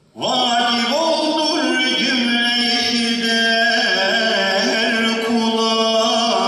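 Unaccompanied solo male voice chanting an Islamic devotional recitation in one long ornamented phrase, held notes sliding up and down. It starts just after the beginning and ends at the close.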